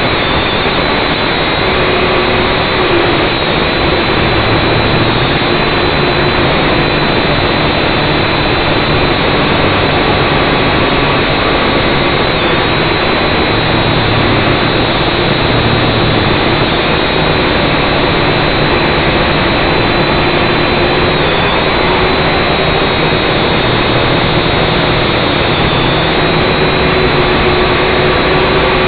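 Syma X5C quadcopter's brushed motors and propellers whining steadily, loud and close from the drone's own onboard camera, the pitch wavering slightly a few times.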